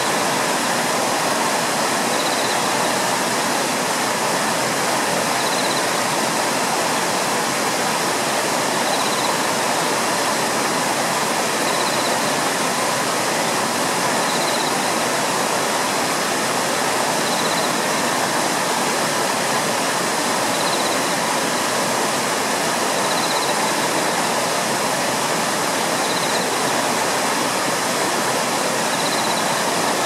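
Water pouring over a weir: a steady, even rush.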